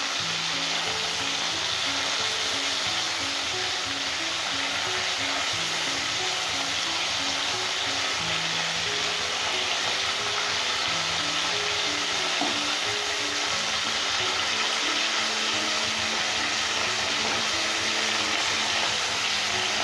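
Small khoira fish shallow-frying in mustard oil, a steady sizzle, while they are turned one by one in the pan with a wooden spatula. Background music plays underneath.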